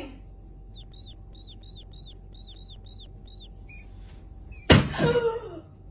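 A quick run of about ten high, short chirping squeaks over two and a half seconds. Then a sudden loud thump, with a woman's short, high cry falling in pitch.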